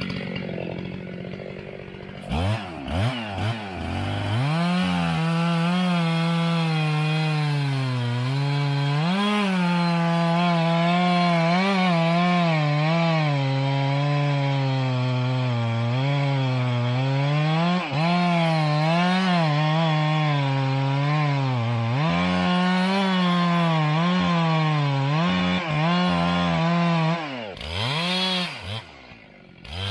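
Old two-stroke chainsaw revving up and cutting wood, running under load with its pitch wavering as the chain bites. It eases off briefly twice and drops to a lower pitch near the end before revving up again.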